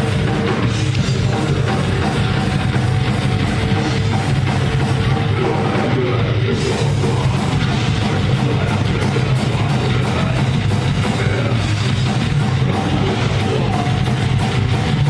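Heavy metal played by a rock band, with drum kit and guitar. The cymbals get busier about six and a half seconds in.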